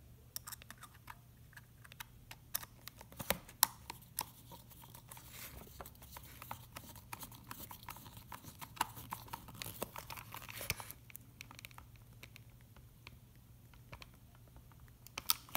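Hand screwdriver driving the screws that fix a Dyson V6 battery pack to the vacuum's plastic body. Faint scattered clicks and scrapes of the screwdriver and of plastic being handled, with a sharper click about three and a half seconds in.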